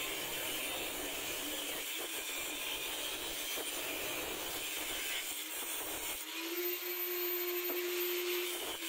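Angle grinder with a thin cut-off disc cutting through a threaded metal pipe, a steady harsh grinding under load. About six seconds in the disc breaks through and the grinder runs free with a steady whine.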